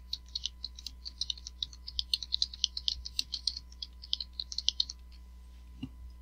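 Typing on a computer keyboard: a quick run of keystrokes for about five seconds, then it stops, with one duller knock near the end.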